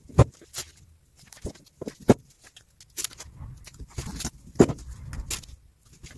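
Handling noise from wrapping adhesive heat tape around a metal boost pipe: scattered sharp clicks and knocks, with the crackle of the tape's backing paper being peeled off. The loudest knocks come about a fifth of a second in, about two seconds in and about four and a half seconds in.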